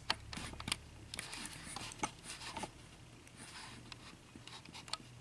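Light clicks and scraping as the small pins of a taken-apart Corbin Euro pin-tumbler lock are handled and moved on a work surface.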